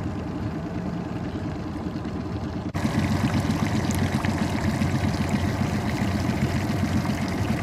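Fishing boat's motor running steadily, with water trickling and splashing around the hull. The sound jumps louder about three seconds in.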